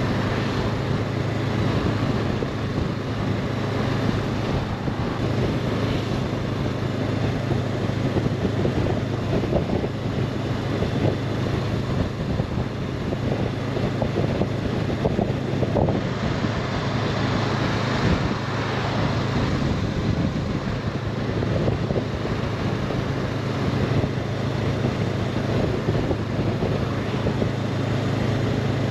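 Honda CB500X parallel-twin engine running at a steady cruise, with wind rushing over the microphone.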